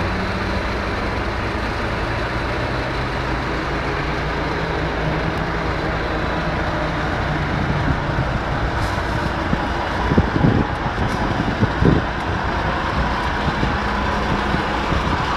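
Steady low engine noise and street traffic, with the engines of parked emergency vehicles running, heard through a mobile phone's microphone. A few brief louder sounds come about ten and twelve seconds in.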